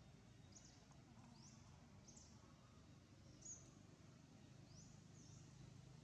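Quiet forest ambience with a small bird's short, high chirps repeating about once a second.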